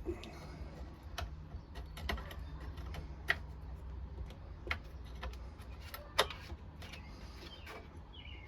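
Irregular light clicks and knocks of hand tools on metal as a set screw is worked and a machine part adjusted and tightened, over a steady low hum; the sharpest knocks come about three seconds in and about six seconds in.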